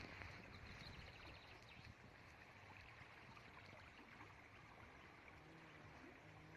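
Near silence: faint outdoor background noise by a river, with a faint low hum in the last second or two.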